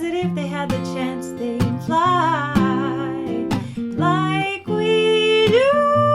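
Strummed acoustic guitar chords with a wordless sung melody. About five and a half seconds in, the voice slides up into a long held note.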